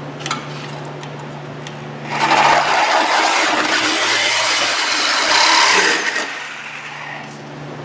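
A power cutting tool slicing through the rusted steel rear exhaust pipe of a 2014 Subaru Outback. The motor hums freely at first. About two seconds in the cut turns loud and harsh for some four seconds, the motor's hum dropping under the load. The noise then eases back to the free-running hum as the pipe parts.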